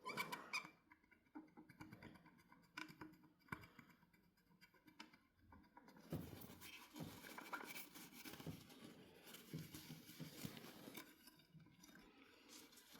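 Near silence, with faint scattered clicks and light scratching of small hand-handling noises.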